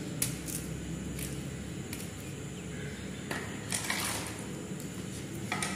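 Sporadic soft clicks and brief rustles of hands peeling and handling small vegetables over a steel colander.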